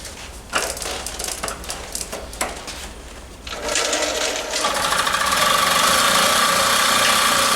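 Motobecane moped's small single-cylinder two-stroke being pedalled over with irregular clatter, then catching about halfway through and running with a steady, high-pitched buzz.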